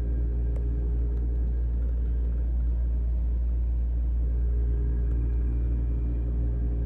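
Air-conditioning system running in cooling mode with a steady, deep droning hum and several steady tones above it. This is the noise that appears whenever the thermostat turns the cooling on. There is a faint click about half a second in.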